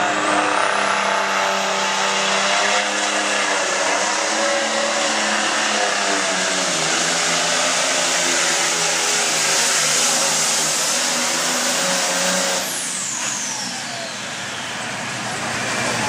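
Hot farm class tractor's turbocharged diesel engine running at full throttle under load as it pulls the weight sled, with a very high turbo whistle that climbs over the first couple of seconds and then holds. About twelve and a half seconds in the throttle is cut: the engine drops off and the whistle falls away as the turbo spools down.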